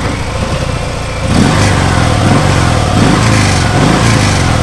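Stock Harley-Davidson Sport Glide's Milwaukee-Eight 107 V-twin running through its stock exhaust. It idles at first, then is revved in a series of throttle blips from about a second in.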